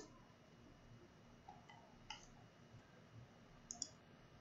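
A few faint computer mouse clicks against near silence, the sharpest a quick pair of clicks near the end.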